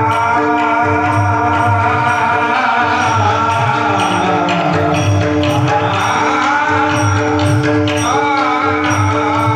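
A man singing a Marathi devotional song in long, gliding held notes. Under him run a steady drone, a regular drum beat and small cymbals keeping time.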